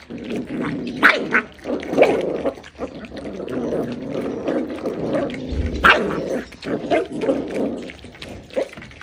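A litter of corgi puppies eating together from one bowl: a continuous jumble of chewing and slurping with small puppy vocal noises, and sharp clicks now and then, the loudest about six seconds in.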